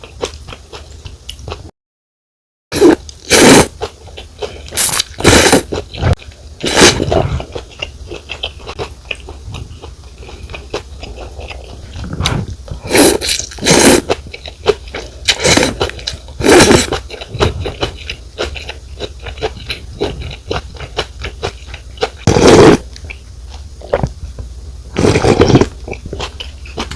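Pho rice noodles slurped in about ten loud, quick slurps, with wet chewing and mouth clicks between them. The sound drops out completely for about a second near the start.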